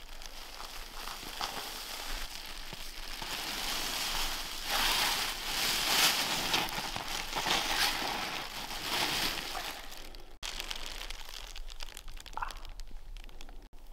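Crinkly plastic emergency bivy bag crinkling and rustling as a person shifts about inside it, loudest in the middle and quieter after a sudden break.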